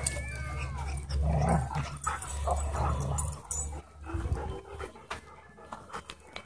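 Several dogs wrestling in play over a stick, with a few high gliding whines and yips among them.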